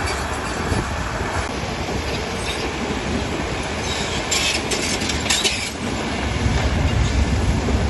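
Heavy earthmoving machinery running steadily with a low diesel rumble and the clank and squeal of steel crawler tracks, as a bulldozer pushes stone. About four seconds in, a burst of higher-pitched clattering lasts under two seconds.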